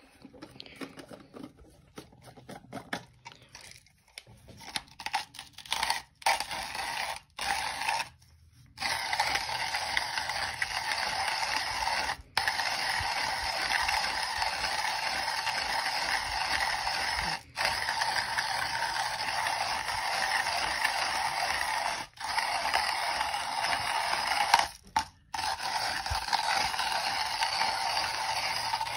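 Comandante C40 Mk4 hand coffee grinder with steel Nitro Blade conical burrs grinding coffee beans at a fine four-click setting: a steady crunching grind from about nine seconds in, broken by a few short pauses. Before it, scattered clicks and taps as the grinder and its jar are handled.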